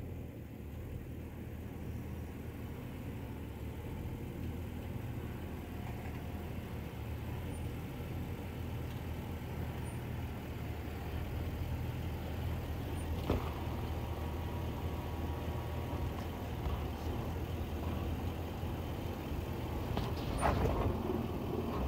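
2010 Land Rover LR4's V8 engine running steadily at low revs as the truck drives the trail. A sharp knock comes about 13 seconds in and a few more near the end.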